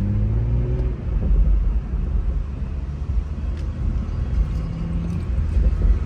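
BMW M340i's turbocharged 3.0-litre inline-six, fitted with an aftermarket intake, pulling hard. Its rising revs carry into the first second, then give way to a loud low rumble, with a brief steady engine note about five seconds in.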